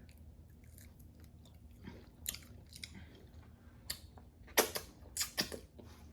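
A person chewing food, with a scatter of short crisp crunches, most of them in the second half.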